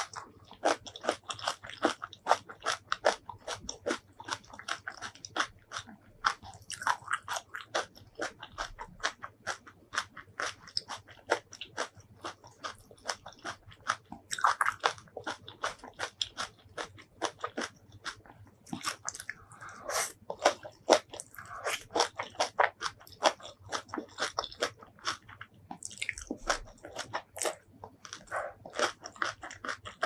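Close-miked chewing of crisp stuffed cucumber kimchi and spicy stir-fried noodles: rapid wet crunches, several a second, without a break.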